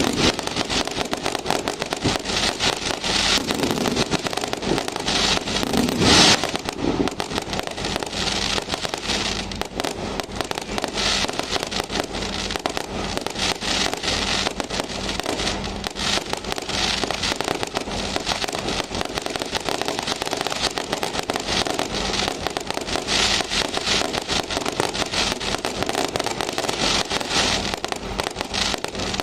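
Many fireworks and firecrackers going off at once in a dense, continuous crackle of overlapping bangs, with one louder blast about six seconds in.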